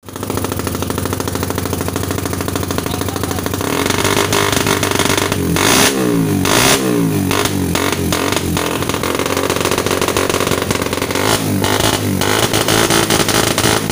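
Suzuki Satria FU 150 single-cylinder four-stroke, stock engine, running through an RCB Purba aftermarket exhaust. It idles steadily, then from about four seconds in is revved in repeated quick throttle blips, each rising and falling in pitch.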